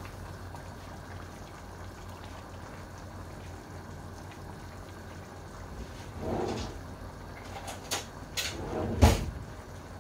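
Tomato sauce bubbling in a stainless steel pan on a gas burner, at a steady low level. A few sharp clicks or knocks come near the end, the loudest about nine seconds in.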